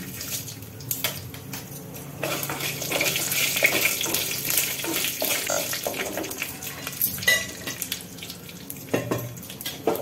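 Whole spices and a little sugar frying in hot mustard oil in a clay pot, sizzling loudest from about two seconds in until about seven seconds. A wooden spatula stirs them, with scattered knocks against the pot.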